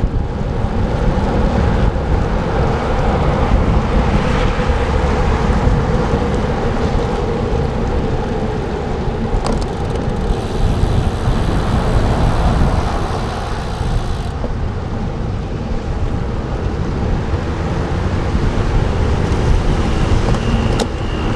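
Steady rushing road and wind noise from a bicycle riding fast on wet pavement in the rain, with car traffic going by. A brighter hiss rises for a few seconds about halfway through.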